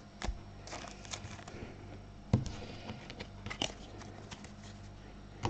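Scattered light clicks and taps of things being handled on a desk, with one sharper knock a little over two seconds in, over a faint steady low hum.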